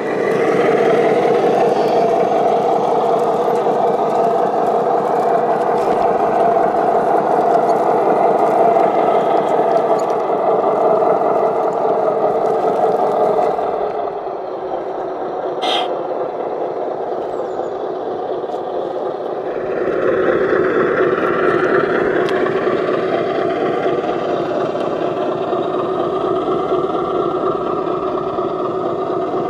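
Radio-controlled model truck running: a steady mechanical whirr of motor and gears. It eases off about halfway through, gives one sharp click a couple of seconds later, and picks up again about two-thirds of the way in.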